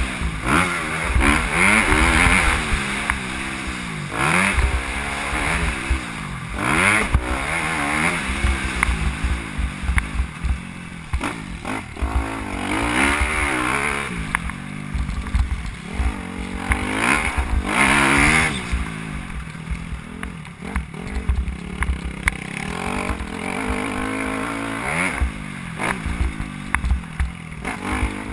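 Motocross bike engine heard on board while riding, its pitch repeatedly rising and falling as the throttle opens and closes, with wind buffeting the microphone.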